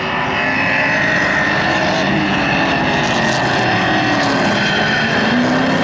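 Several stock car engines running together as the pack laps the dirt oval, their pitch rising and falling as the cars accelerate and pass.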